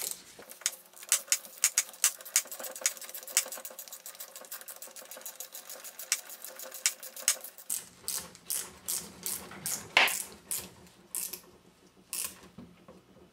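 Ratchet wrench clicking in quick, even strokes for most of the first eight seconds, then a few slower clicks and knocks, as the through bolts are run into a starter motor's housing.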